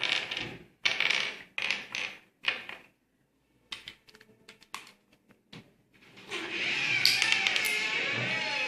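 Small plastic Rubik's cube pieces clicking and snapping as they are fitted back together, a few sharp clicks at a time. From about six seconds in, a loud burst of several voices, in which no words are made out.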